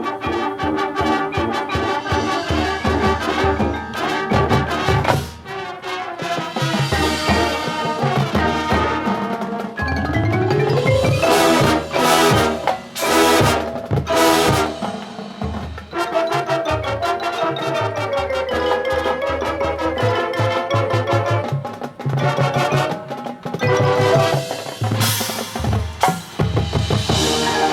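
High school marching band playing its field show: brass over front-ensemble mallet percussion and drums. About ten seconds in the music rises in a glide into several loud accented hits, then settles back into a melody.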